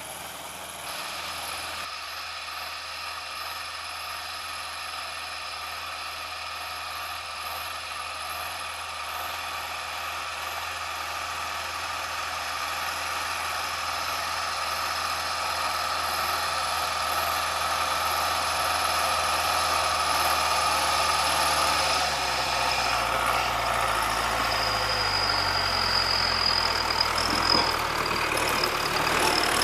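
Tractor engine running steadily and growing gradually louder, its low note shifting about three-quarters of the way through.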